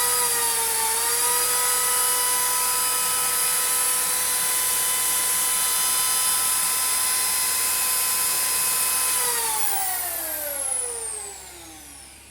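Household electric drill running at steady full speed while boring into hard natural stone, a high whine with little change in pitch. About nine seconds in the trigger is released and the motor spins down, its whine falling and fading away.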